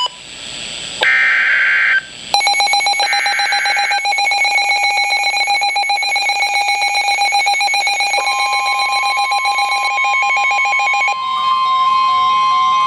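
Weather radio Emergency Alert System signal for a flash flood warning. Short buzzy SAME header data bursts sound about one and three seconds in, and the steady single-pitch warning alarm tone starts about eight seconds in. Over them, a second electronic alert rings in rapid pulses, then switches to an alternating two-note pattern near the end.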